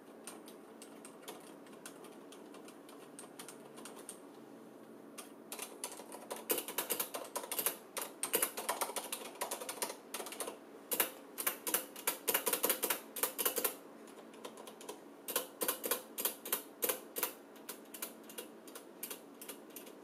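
Typing on a Corsair Strafe RGB MK2 mechanical keyboard with Cherry MX Silent linear switches: quiet but not fully silent key presses. The typing starts about five seconds in, comes in quick runs and pauses briefly about three-quarters of the way through.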